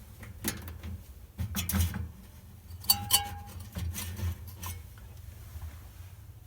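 Scattered light clicks, taps and rubbing from handling, with a brief high tone about three seconds in, over a low steady hum.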